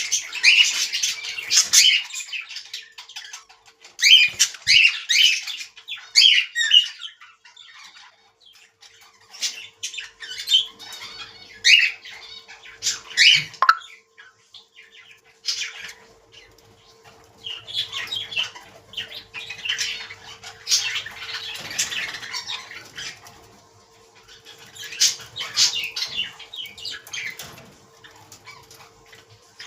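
Budgerigars chirping and squawking in repeated bursts of chatter, with short pauses between the bursts.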